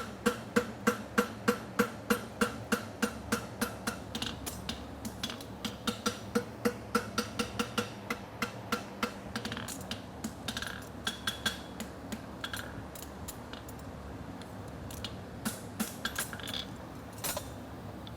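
Farrier's hand hammer striking a horseshoe on the anvil, finishing the medial side of a hammer-finished side bone front shoe. It hits in an even rhythm of about three ringing blows a second for roughly the first nine seconds, then gives fewer, lighter strikes.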